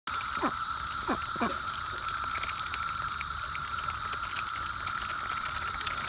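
A steady cicada chorus buzzing at two pitches, one mid and one high, over ducks dabbling their bills in a muddy puddle with soft wet pattering and clicking. Three short falling calls from the ducks come in the first second and a half.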